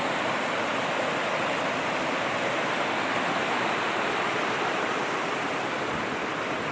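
Water rushing over a small stone-stepped waterfall and running down a rocky stream: a steady rush that eases slightly near the end.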